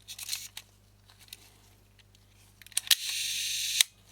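Small clicks and scrapes of lens parts being handled on the workbench, then a steady hiss lasting just under a second, starting and stopping sharply.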